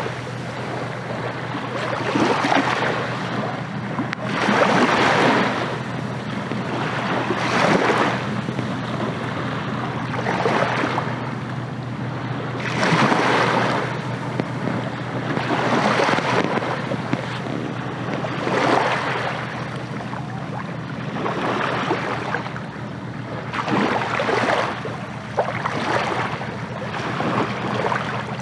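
Choppy sea waves washing in, swelling in surges every two to three seconds, with wind over the water. A steady low hum runs underneath.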